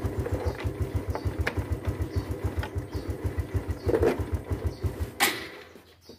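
Honda Supra X 125 FI's single-cylinder four-stroke engine idling with a steady low beat, then shutting off abruptly about five seconds in, followed by a sharp click. Light plastic clicks and a clunk from the headlight cover being fitted sound over the idle.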